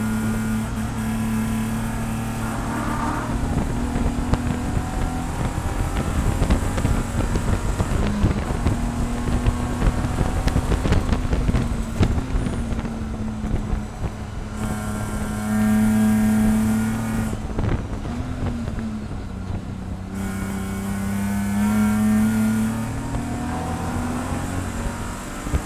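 In-cabin sound of a BMW E46 race car's inline-six engine at full racing load, revving up through the gears and dropping in pitch several times on lifts and downshifts, with wind and road noise.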